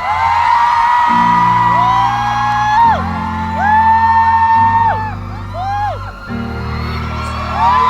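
Instrumental intro of a pop ballad over a concert sound system, its low sustained chords changing about every second and a half to two seconds. An audience of fans screams and whoops over the music.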